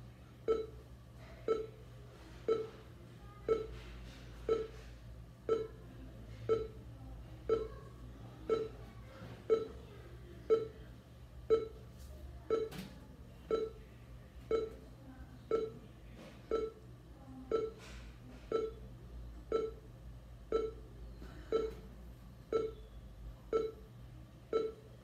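NVDA screen reader's progress beep, a short tone repeating about once a second at a steady pitch, played through the computer's speaker over a low steady hum. It signals that the screen reader is busy and still creating the portable copy.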